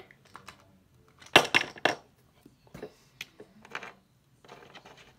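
Hard plastic toy dinosaurs clacking and knocking together as they are handled and set down. There is a quick cluster of knocks about a second and a half in, the loudest, then a few single clicks.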